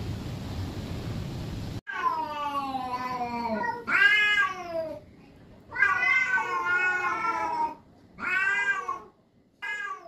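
Cats yowling at each other in a standoff: five long, wavering, rising-and-falling yowls, the threat calls cats give when squaring off before a fight. They begin after a steady hiss that cuts off about two seconds in.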